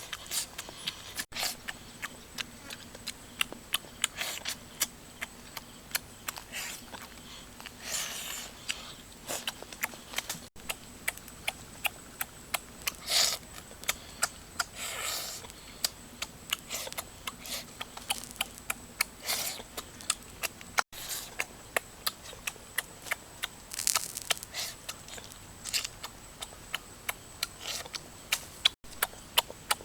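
A person eating cooked eel up close: irregular wet smacks and clicks of chewing and lip smacking, with a few longer slurping or chewing sounds.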